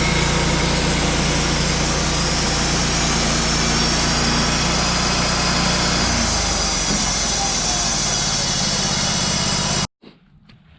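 Wood-Mizer LT35 portable sawmill's engine running steadily, its pitch shifting lower about six seconds in. The sound cuts off suddenly near the end.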